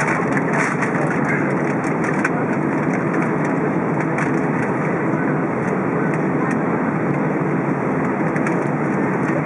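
Steady cabin noise inside an Airbus A320 on the ground, its jet engines running at idle as an even, unbroken rush.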